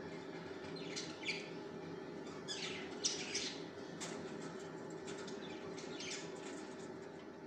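Masking tape being peeled off the edges of painting paper in a series of short, crackling rips, the loudest about three seconds in, over a steady low hum.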